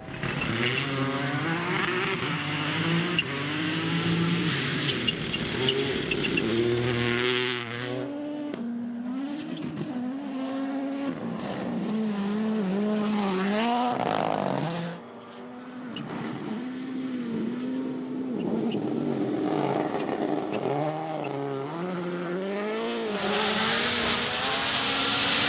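Rally car engines at full throttle on a special stage, the pitch climbing and dropping again and again through quick gear changes. The sound drops off suddenly about fifteen seconds in, and another run of engine revving follows.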